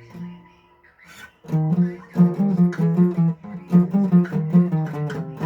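Guitar played between sung lines: a held chord rings out and fades, and after a short pause a steady run of plucked chords starts about a second and a half in.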